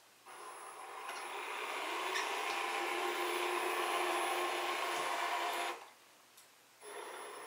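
Aries TR3200 sewer camera crawler's electric drive motors and gearing running as it drives and turns, a steady whine with a thin high tone above it. It starts about a quarter second in, cuts off just before six seconds, and starts again about a second later.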